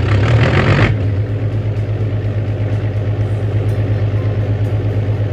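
Excavator's diesel engine, louder and rougher for about the first second, then idling with a steady low, pulsing throb.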